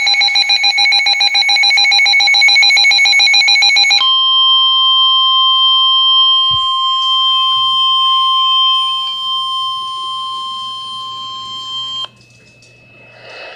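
Emergency Alert System warning signal: a loud, rapidly pulsing electronic buzz for about four seconds, then a steady single-pitch alert tone near 1,050 Hz, the NOAA Weather Radio warning alarm tone, held for about eight seconds before it cuts off abruptly.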